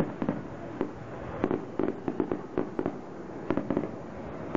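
Aerial fireworks popping and crackling: many sharp, irregular pops, several a second, as sparkling stars burst. A louder shell burst dies away right at the start.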